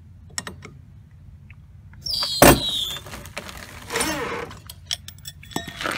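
A red floor jack being handled under a car's side sill: light clicks, then a short falling squeak and a loud metallic knock about two and a half seconds in, with scraping around four seconds in and again at the end.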